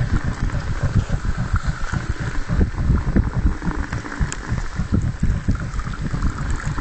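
Wood-chip water heater burning hard, its fire drawing air down through the venturi with a rapid, irregular low rumbling and puffing.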